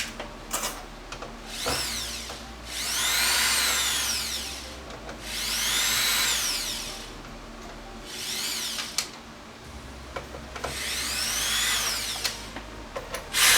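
Small electric screwdriver running in several short bursts of a couple of seconds each, its motor whine rising in pitch as it spins up and falling as it slows, with light clicks in between.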